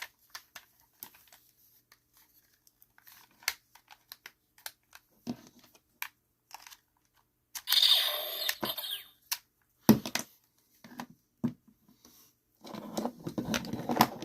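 Handling noises: scattered clicks and knocks of plastic being moved, with a crinkling, tearing rustle about eight seconds in and sharp knocks a little after.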